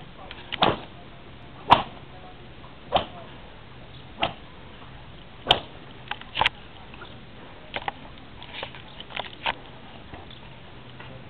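Hungarian karikás herdsman's whip cracking repeatedly: a sharp crack every second or so, some in quick pairs.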